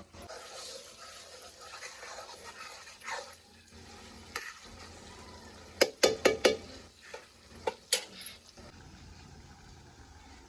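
A spoon stirring food frying in a metal pan, with a steady sizzle. About six seconds in, a quick run of sharp metal knocks, the loudest sounds here, as the spoon strikes the pan, and one more a little later.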